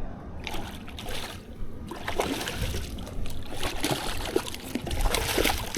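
Water splashing and sloshing in irregular bursts with scattered knocks, as a hooked fish thrashes at the surface while it is landed from shore.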